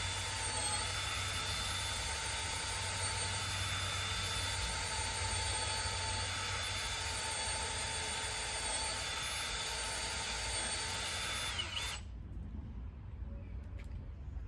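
Cordless drill boring into a wooden porch post, its motor whining at a steady pitch. About twelve seconds in the drill stops and winds down.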